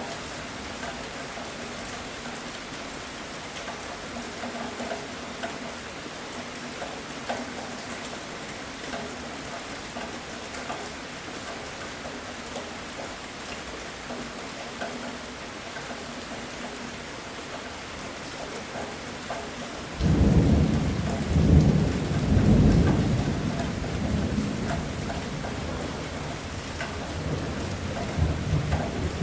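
Steady heavy rain falling, with a loud rumble of thunder breaking in suddenly about two-thirds of the way through and slowly fading.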